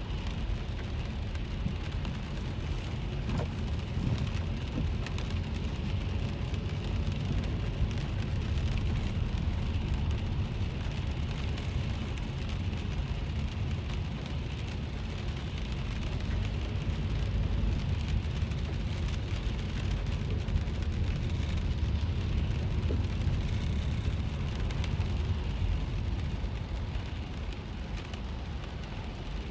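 Inside a moving car's cabin in the rain: a steady low rumble of the car on the road, with rain pattering on the car's body and windshield.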